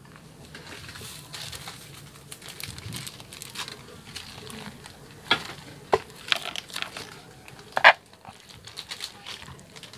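Wooden pestle crushing and grinding garlic and ginger in a stone mortar: an irregular gritty crunching, with sharp knocks on the stone about five and six seconds in. The loudest knock comes near the end, as a plastic scoop goes into the mortar.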